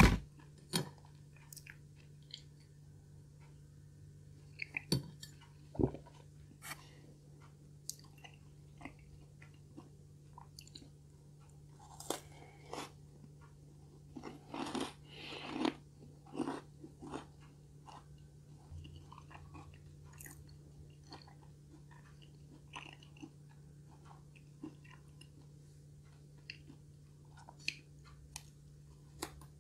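Close-miked chewing of a Hershey's chocolate chip cookie: soft wet chewing with scattered crunches and mouth clicks, busiest about halfway through. A sharp click right at the start is the loudest sound.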